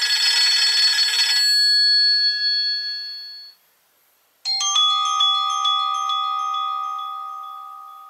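Nokia C3 mobile phone ringtones: a bright chime that rings out and fades away about three and a half seconds in. After a short pause a second tone starts, quick high notes over a held chord that slowly dies away.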